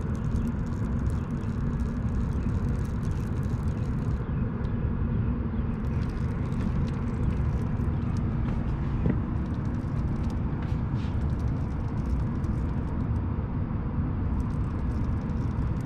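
Steady low rumble of background noise, even and unbroken, with faint scattered clicks above it.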